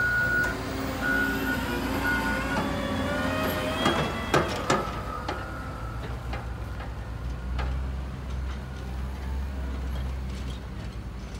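Snow-clearing truck backing up: its reversing alarm beeps in steady pulses for the first few seconds over the rumble of a heavy engine, with a few sharp knocks about four seconds in. The engine rumble carries on alone after that.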